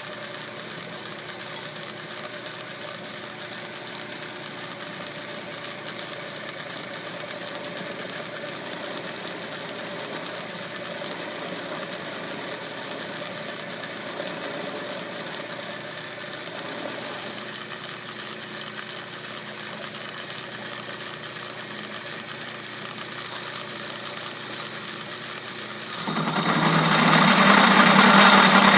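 Atlas metal lathe running with a steady motor and belt-drive hum. About 26 seconds in the sound turns suddenly louder and harsher, as the bit starts cutting the strap iron.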